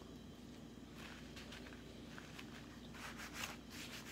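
Faint chewing and wet mouth clicks of a person eating a black bean veggie patty sandwich, with a louder cluster of mouth sounds about three seconds in.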